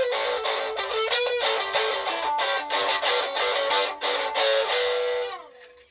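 Electric guitar playing a blues lick through a tiny battery-powered Smokey pocket amplifier, layered with a loop from a Ditto looper pedal. Near the end the notes slide down in pitch together and die away.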